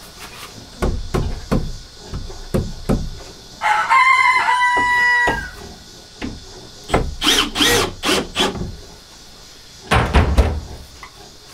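A rooster crows once, about four seconds in: a harsh, pitched call of just under two seconds that dips at the end. Around it come scattered knocks and thumps, with a heavy thump near the end.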